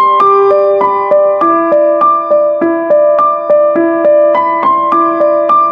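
Background piano music: an even stream of notes, about three a second, over held chord tones.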